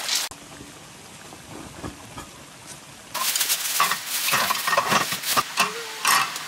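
Food frying in a pan on a camp stove, sizzling and being stirred, with scraping and clattering strokes of the utensil against the pan. It starts about three seconds in, after a quieter stretch.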